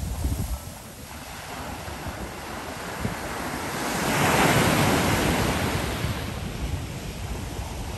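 Ocean surf breaking on the beach, with a wave crashing and washing in that swells to its loudest about halfway through. Wind buffets the microphone underneath.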